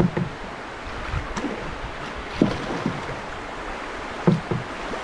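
Steady rush of river rapids around a canoe, with a few short splashes.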